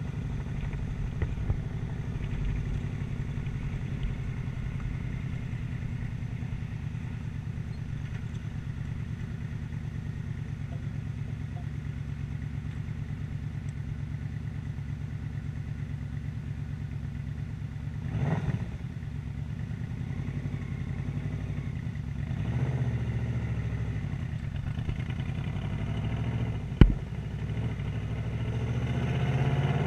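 Yamaha Royal Star motorcycle's V4 engine running steadily at low revs under a rider. Its pitch rises as it accelerates, briefly about two-thirds of the way through and again near the end. There is a single sharp knock shortly before the end.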